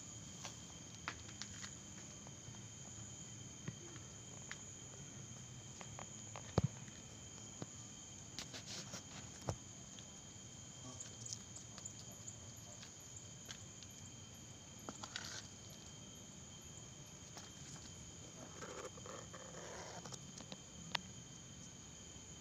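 Night insects chirping in a steady, continuous high trill, with a run of faint, evenly spaced high ticks in the middle. Scattered sharp clicks come over it, the loudest about a third of the way in, and a brief rustle comes near the end.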